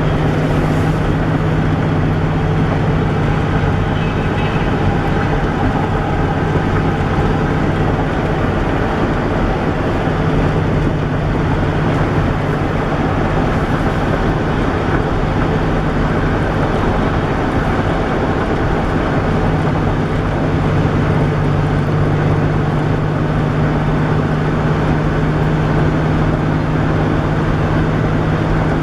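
Steady vehicle running noise at an even speed: a constant low hum over a continuous rumble.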